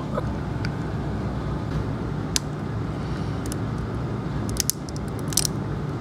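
Scattered small clicks and cracks from a heat-aged, brittle plastic fuel injector connector crumbling as its pins are pried out with a pick, over a steady low hum.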